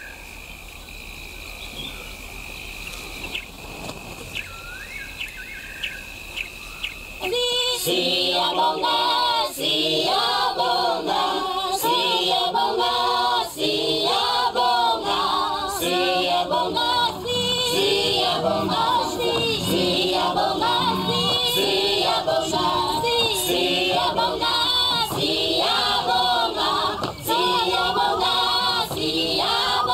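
Quiet night ambience with a steady high trill and a few short rising calls, then, about seven seconds in, a choir starts singing in the soundtrack music and carries on, much louder.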